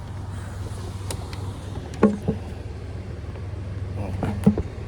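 A basketball hits twice, about two and a half seconds apart, each a sharp smack with a short ringing tail, over a steady low rumble.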